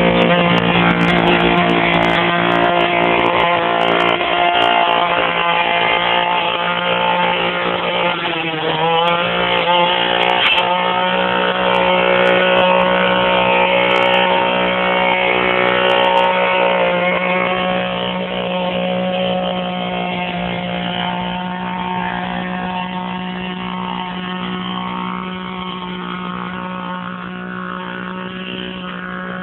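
Small petrol engine of grass-cutting equipment running steadily. Its pitch dips and recovers about eight seconds in, as if briefly loaded, and it slowly grows quieter toward the end.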